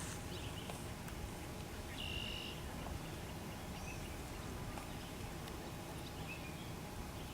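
Quiet outdoor ambience: a steady low rumble with a few faint, short bird chirps, one held a little longer about two seconds in.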